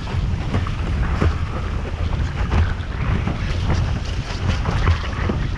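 Strong wind buffeting the microphone of a boom-mounted action camera, over the rush of a windsurf board planing at speed across choppy sea, with frequent short slaps and splashes of chop and spray against the hull.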